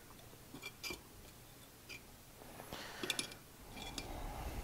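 Screwdriver working at the cut slits in a chainsaw's metal muffler, bending them out into exhaust louvers: faint scattered metal clicks and scrapes, with a quick cluster of clicks about three seconds in.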